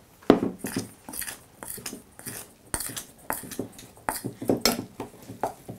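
Metal spoon stirring corn kernels and flour in a stainless steel bowl: a run of irregular scrapes and knocks of the spoon against the bowl.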